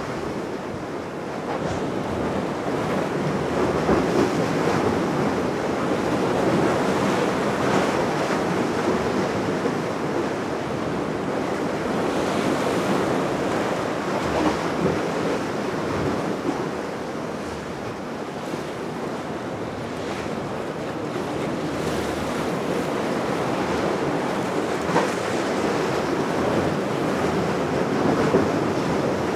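Steady rushing of sea water and waves, with wind buffeting the microphone; the loudness swells and eases every few seconds.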